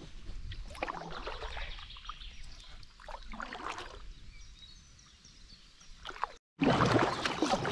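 Kayak paddle strokes dipping and splashing in the river water, with faint bird chirps in the background.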